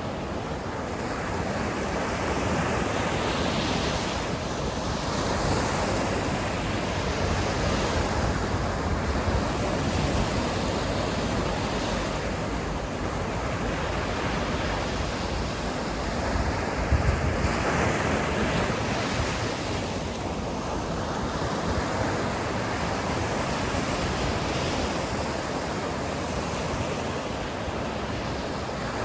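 Sea waves breaking and washing up the shore, a steady rush of surf that swells and falls every few seconds.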